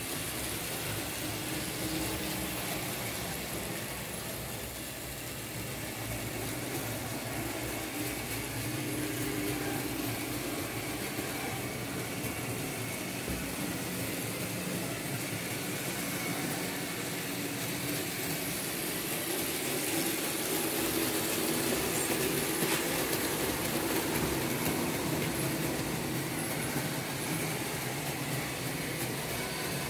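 Märklin H0 model train, a 1962 BR 23 steam locomotive model hauling open freight cars, running steadily along the track: motor running and wheels rattling over the rails, a little louder about two-thirds of the way through.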